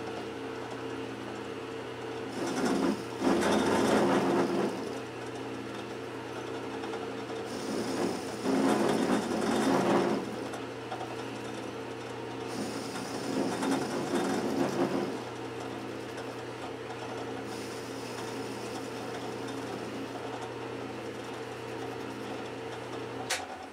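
Atlas metal lathe running with a steady hum while its cutting tool faces the end of a hexagonal part. The cutting noise swells three times, about three, eight and thirteen seconds in, each time for a second or two.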